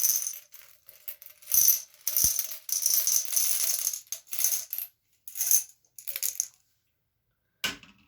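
Small metal bolts dropped by hand into a vial, clinking and rattling in a run of bursts that stops about six and a half seconds in. A single sharp knock comes near the end.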